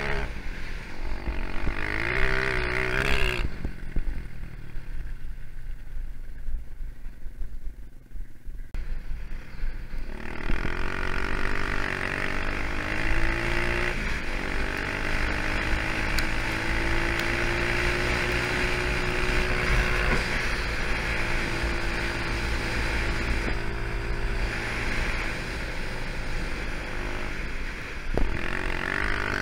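250cc four-stroke dirt bike engine revving under the rider, easing off for several seconds, then holding steady high revs for a long run.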